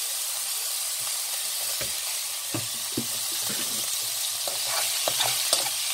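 Diced bacon and chicken breast sizzling in a frying pan with a little oil just poured in: a steady hiss with scattered crackling pops that come more often near the end.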